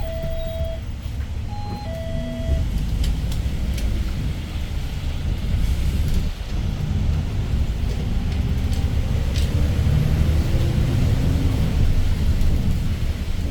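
Interior of a Daewoo BS090 city bus running on its CNG Doosan GL08P engine: a two-note descending electronic chime sounds twice near the start, then the engine rumble builds as the bus pulls away, with a brief dip about six seconds in and a rising engine note after it, as with a gear change on its five-speed manual gearbox.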